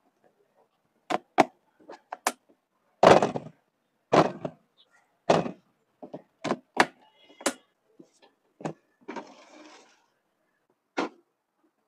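A series of separate sharp clicks and knocks from clear plastic storage containers being handled, filled and set down, a few of them heavier thunks. A short rustle comes near the end.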